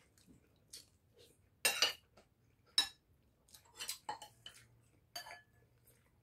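A metal spoon clinking and scraping against ceramic plates and a soup bowl: a handful of short clinks, the loudest about two seconds in.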